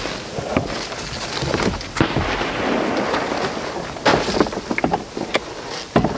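Wind buffeting the microphone in a steady rumble, with scattered knocks and taps as the plastic cover of a rooftop AC unit is set down and fitted on the van's metal roof. The loudest knocks come about two seconds in, four seconds in and at the very end.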